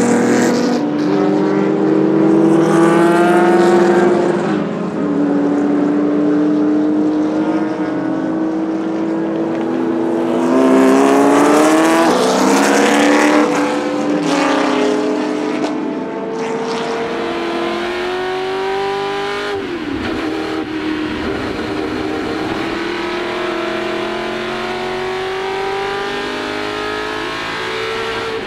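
Ford GT40 Mk1's Ford small-block V8 at racing speed, heard from the cockpit. The revs climb and drop back at each gear change, several times.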